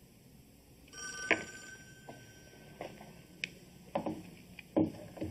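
A telephone rings briefly about a second in, a steady tone lasting about a second. It is followed by a few scattered short knocks and clicks.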